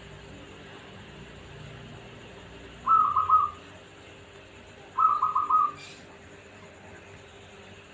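A zebra dove (perkutut) cooing: two quick phrases of about four or five short, clipped notes each, about two seconds apart.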